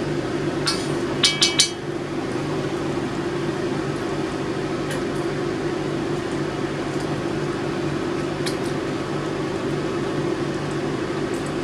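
A spoon clinking sharply against a metal pot three or four times in the first two seconds, over the steady hum of a kitchen fan and a running microwave.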